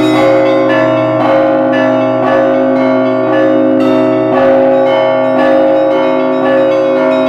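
Russian Orthodox church bells rung by hand from the belfry, their clappers pulled by ropes. Small bells are struck in a quick repeating pattern of about two strokes a second over the held ringing of the larger bells, heard close up in the bell tower.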